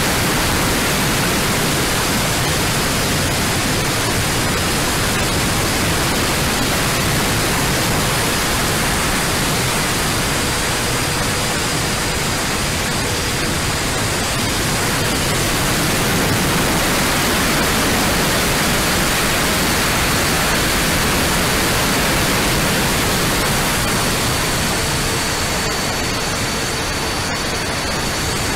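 Onboard sound of a model A-10's twin 70 mm electric ducted fans in flight, heard as a steady rushing hiss with a faint high whine that shifts a little in pitch, as carried over an analog FPV video link.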